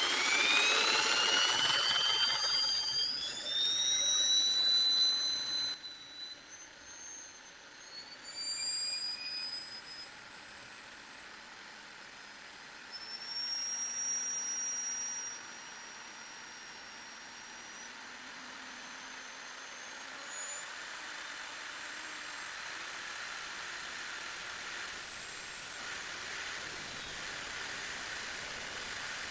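Electric drill running with a thin high-pitched whine that climbs slowly and steadily in pitch. It is loudest in the first few seconds.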